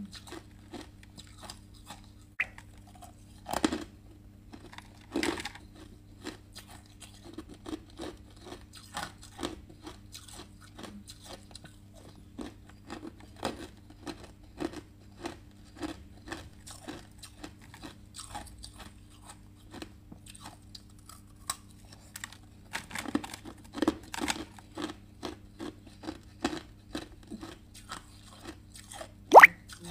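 Chunks of clear ice being bitten and chewed, a steady run of sharp crunches with a few louder bites and the loudest crack near the end.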